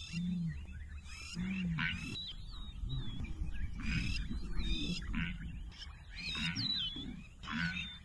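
Outdoor wildlife recording of a Southern African animal call: short, low, arching calls repeat every second or two, while quick high chirps of small birds sound above them.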